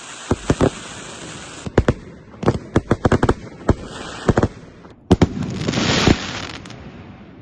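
Fireworks going off: a string of sharp bangs, some in quick clusters, then about five seconds in a dense crackling burst that slowly fades away.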